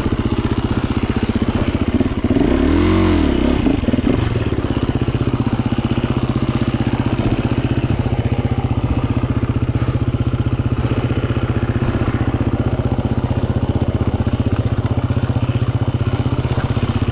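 GasGas 350 dirt bike's single-cylinder four-stroke engine running steadily at low trail speed, with one rev that rises and falls about two to three seconds in.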